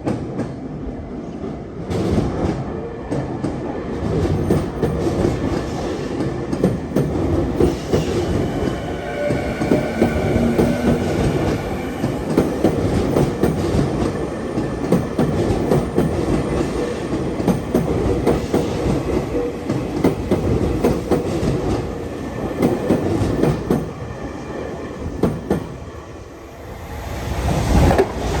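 Tokyu Meguro Line electric train passing at close range over a level crossing, its wheels clattering rapidly over the rail joints above a steady rumble. The noise eases off and then rises again near the end.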